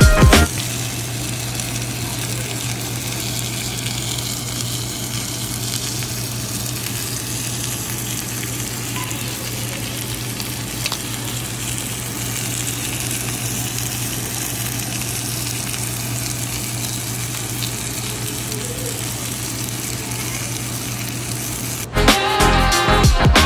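Stuffed squid sizzling steadily on a hot ridged cast-iron grill pan. Music cuts in near the end.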